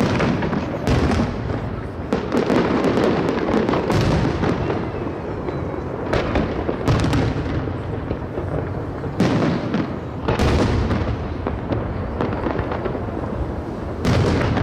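Aerial firework shells bursting in quick succession over the sea, about nine loud bursts a second or two apart, with crackling between them.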